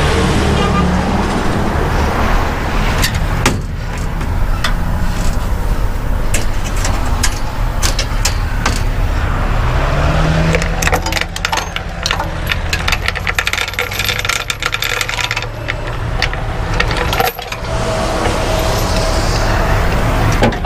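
Heavy tow truck's diesel engine idling steadily, with steel tow chains and hooks rattling and clinking as they are handled, busiest about halfway through.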